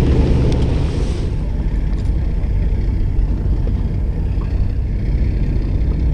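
Steady low rumble aboard a small fishing boat at sea, with a rushing hiss in the first second or so.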